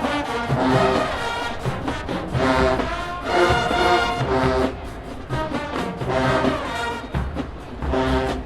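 HBCU-style marching band playing, loud brass in phrases over a drumline's beat.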